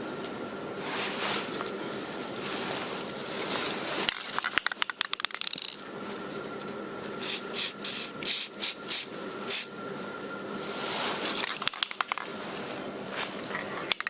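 Aerosol spray-paint can: a rapid rattle of its mixing ball as it is shaken about four seconds in, then a string of short spray bursts, with a longer spray later on.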